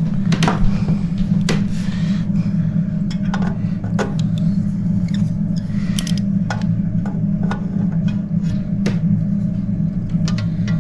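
Hand tools such as pliers clicking and knocking as they are handled and set down, in irregular sharp clicks. A steady low hum sits under them throughout.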